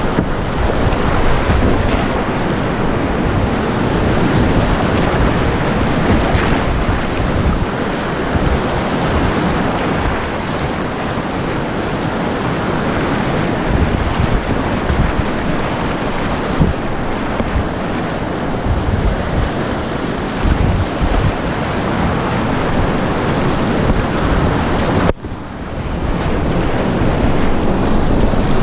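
Loud, steady rush of whitewater rapids heard from a kayak running through them, with paddle strokes splashing in the water. Near the end the sound briefly cuts out and swells back up.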